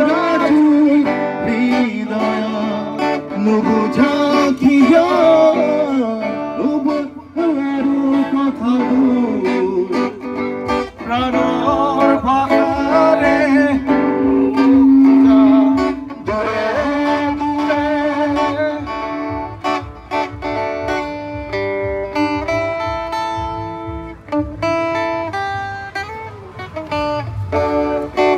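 A song: singing over guitar accompaniment, with a bass line coming in about eleven seconds in.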